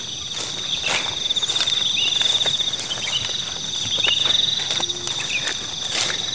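Insects trilling steadily in a high, pulsing drone, with irregular footsteps in grass.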